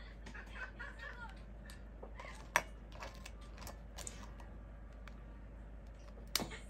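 Cooked crabs being pulled apart by hand: the shells and legs crack and snap in a few sharp clicks, the loudest about two and a half seconds in and another near the end.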